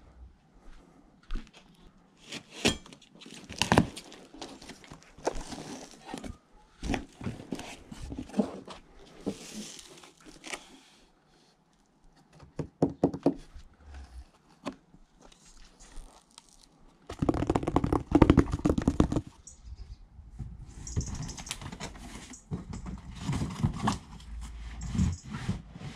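Cardboard bike box being opened by hand: a knife slitting the packing tape, and cardboard flaps and packing pieces scraping, rustling and knocking, with many short sharp knocks and a dense louder stretch of scraping about two-thirds through.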